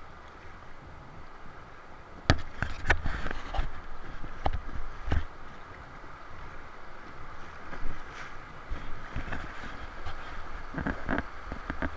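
River water rushing along the bow of an inflatable raft, with sharp splashes against the raft in a cluster about two to five seconds in and again near the end.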